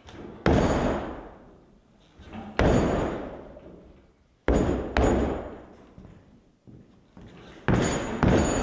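A man in work boots jumping hard on a fiberglass boat foredeck, newly reinforced with two layers of biaxial glass over thin chopped-strand mat: about six heavy thumps, each dying away, the later ones coming in quick pairs. It is a bounce test of the deck's stiffness.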